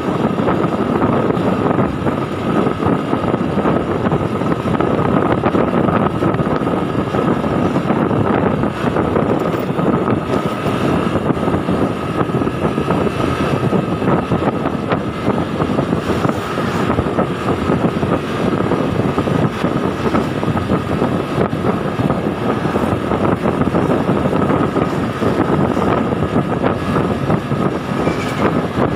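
Riding a motorbike at steady speed: wind rush on the microphone over the running engine, with a thin steady whine throughout.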